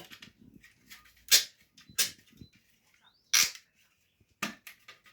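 Sharp clicks and knocks as a wall socket and its fixing screw are handled and worked into the wall: four loud ones about a second apart, with fainter ticks between.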